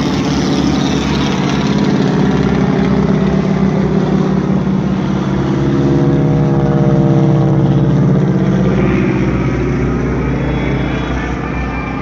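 Military aircraft flying low and close overhead: a loud, steady engine drone whose pitch falls as it passes, loudest midway through.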